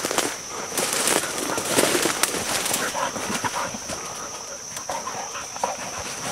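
Hog dogs worrying a downed wild boar in dry leaves and brush: irregular scuffling, rustling and twig cracking with a few brief animal sounds, over a steady high-pitched hum.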